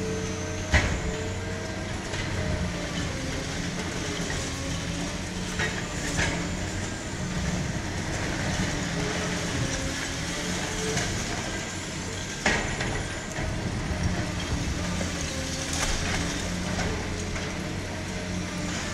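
Liebherr R 944 C demolition excavator working: its diesel engine running steadily under hydraulic load while the long-reach demolition jaw crushes concrete. Sharp cracks and crashes of breaking concrete and falling debris, the loudest about a second in.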